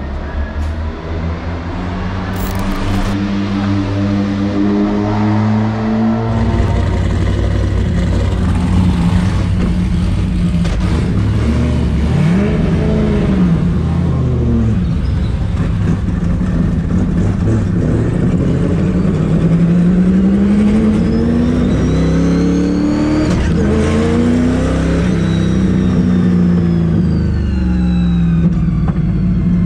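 Corvette Z06's V8 engine heard from inside the cabin, running and revving, its pitch rising and falling several times as the car drives off.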